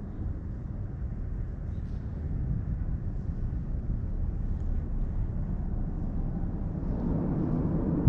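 Steady low outdoor rumble that grows a little louder near the end.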